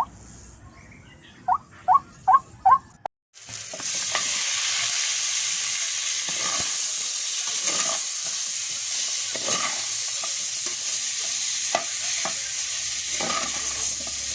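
Food frying in hot oil: a steady sizzle with scattered pops and crackles. It starts suddenly about three seconds in, after a short run of four quick rising chirps.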